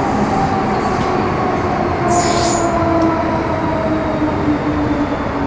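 Metro Cammell M-Train electric multiple unit with a GEC GTO chopper, heard from inside the car, running with a whine that slowly falls in pitch as the train slows. About two seconds in there is a brief high hiss with a thin squeal over the rumble of the wheels.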